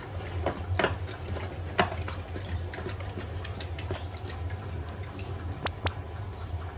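Dogs eating soft food from plastic dishes: quick, irregular smacking and chewing as a black Labrador gobbles its food, with the plastic dish clacking on the wooden floor as it is nosed along.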